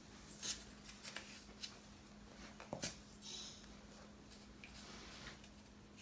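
Faint clicks and light knocks of small wooden kit pieces being handled and fitted together, the clearest knock about three seconds in, over a faint steady hum.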